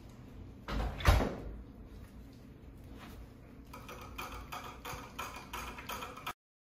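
Shih Tzu licking at the metal drip nozzle of a mounted water bottle: a quick run of sharp clicking licks, about five a second, in the second half. A loud thump comes about a second in, and the sound cuts off suddenly near the end.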